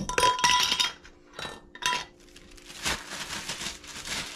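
Metal mason jar lid and screw band clinking against each other and the glass jar as the jar is opened and the lid is handled: a cluster of short ringing chinks in the first second, two more about a second and a half and two seconds in, then softer knocks and rustling as the lid is set down.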